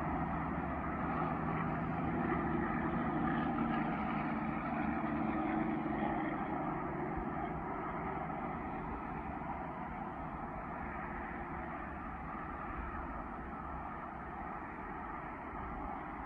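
Steady vehicle road noise, an engine-and-tyre hum that fades slowly; the distant rocket itself makes no sound here.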